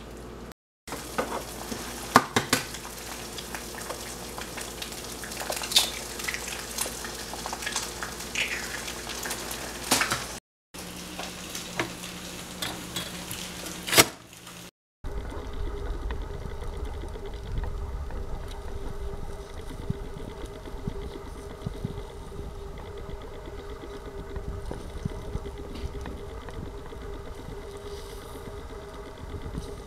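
Eggs frying in a nonstick skillet: a steady sizzle dotted with sharp clicks and pops, and scrapes of a spatula as the eggs are turned. The sound cuts out briefly a few times, and in one short stretch a low hum runs and ends in a loud click.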